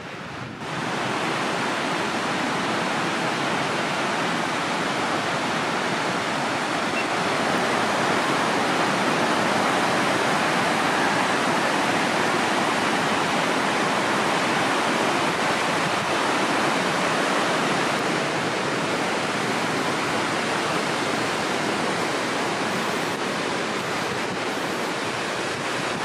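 Fast creek water rushing over rocky rapids, a steady, even rush that sets in abruptly within the first second.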